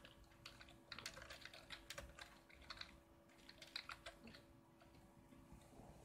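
Faint typing on a computer keyboard: a quick run of key clicks that thins out after about four seconds, over a low steady hum.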